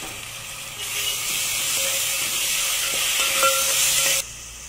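Ginger-garlic paste sizzling loudly in hot oil in a metal pot as it is stirred, with a spoon scraping and clicking against the pot. The sizzle swells about a second in and cuts off suddenly near the end.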